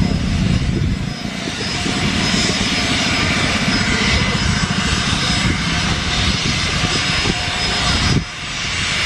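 Embraer Legacy business jet's two rear-mounted turbofans running at taxi power: a steady, heavy rumble with a thin high whine over it. The sound drops abruptly about eight seconds in.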